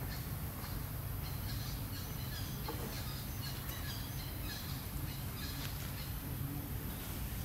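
Outdoor ambience: a steady low rumble with scattered faint high chirps through the middle.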